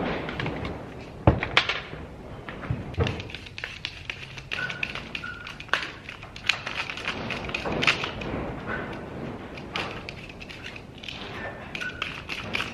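Irregular clicks, taps and knocks of hand tools and plastic and metal parts being handled while a small chainsaw is taken apart, with a sharp knock about a second in.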